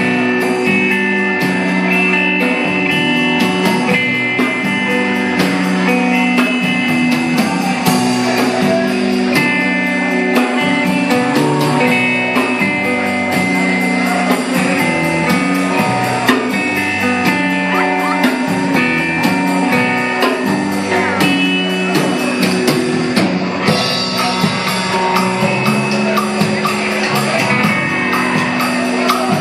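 Live rock band playing: guitars over a drum kit, with a steady fast cymbal beat.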